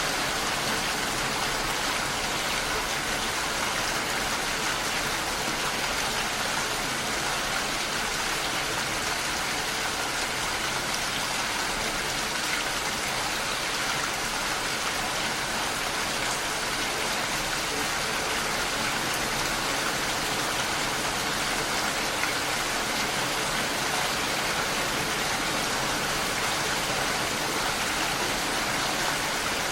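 Steady rain falling, an even wash of patter with no thunder and no change in level.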